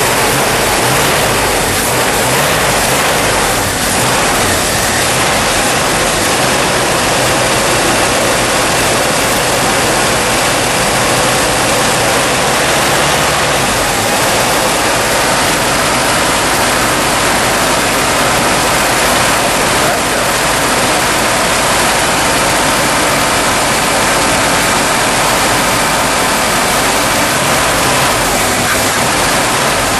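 Dodge Power Wagon's 360 cubic-inch V8 running steadily on wood gas from a gasifier, just after starting on choke, with a loud, even rushing noise over the engine sound.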